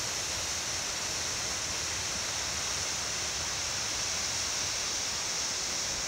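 A waterfall running full, a steady even rush of falling water with no breaks or changes.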